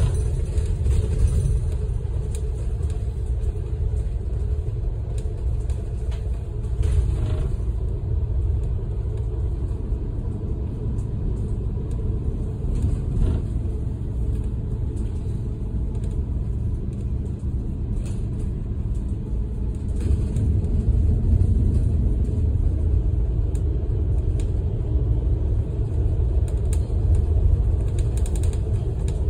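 Steady low engine and road rumble heard from inside a large moving vehicle, a bus, cruising on an expressway, with a few faint clicks and rattles from the cabin.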